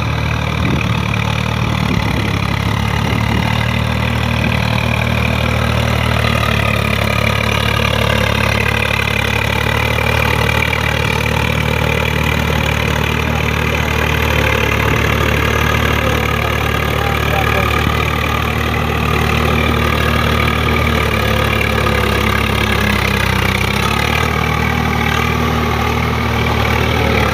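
Swaraj 744 FE tractor's three-cylinder diesel engine running steadily under load, driving a rotavator through deep paddy mud. Its pitch sags briefly near the end, then recovers.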